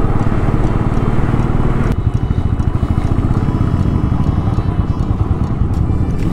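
Royal Enfield motorcycle engine running under way, a steady low pulsing rumble. The sound changes abruptly about two seconds in.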